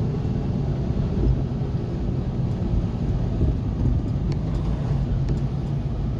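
Steady engine and tyre noise of a moving vehicle heard from inside its cabin, a low rumble with a steady hum. A couple of faint clicks come about four and five seconds in.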